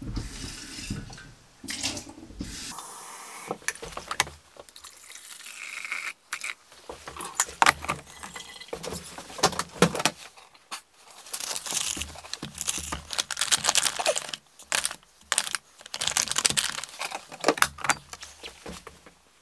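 Water running from a kitchen tap into a glass coffee-maker carafe, with a note that rises as it fills. This comes in several runs, broken by knocks and clatter as the carafe and the drip coffee maker are handled.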